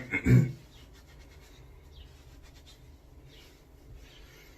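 A cloth towel rubbing and patting a freshly shaved face dry: a brief loud handling thump at the start, then faint, irregular scratchy rubbing strokes.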